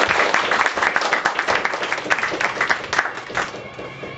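Audience applauding and clapping, dying away about three and a half seconds in.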